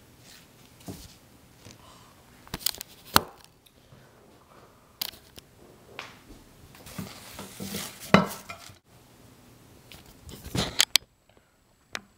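A paper napkin rustling as it wipes spilled chocolate milk off a wooden table, with scattered knocks and clinks of a bowl and spoon.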